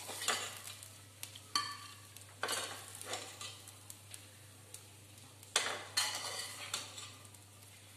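Metal spatula scraping and knocking in a stainless-steel pan as fried rice is scooped out onto a plate, in several separate strokes, the loudest about five and a half and six seconds in.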